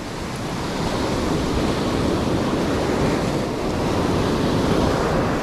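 Rough sea surf breaking and foamy water washing up the sand, a loud steady rush that builds slightly over the first few seconds.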